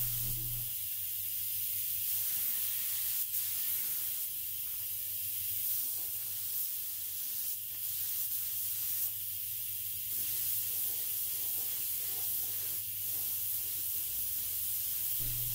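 Neiko 31207A mini HVLP gravity-feed spray gun hissing steadily as it sprays base coat, its air set at about 27 psi with the fan opened all the way.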